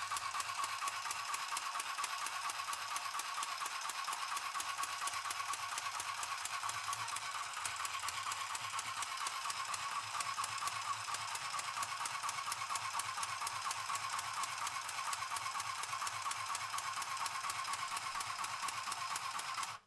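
Mini sewing machine running continuously, its needle mechanism making a fast, even rattle that stops suddenly at the very end.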